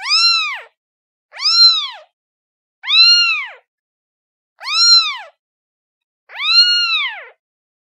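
Kitten meowing five times, one high call about every one and a half seconds, each rising then falling in pitch, with the last drawn out a little longer. A kitten calling for its mother.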